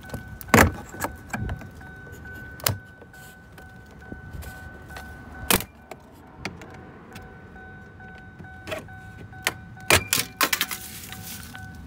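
Sharp plastic clicks and knocks from a flathead screwdriver prying trim off a car's door panel: single snaps every second or few, then a quick cluster of clicks near the end. A faint steady high tone runs underneath.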